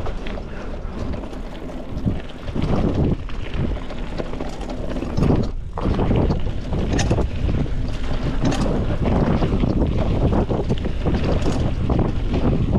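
Wind buffeting the microphone at riding speed over the rumble of a mountain bike's tyres on a dirt trail. The noise rises and falls in loudness as the bike moves along.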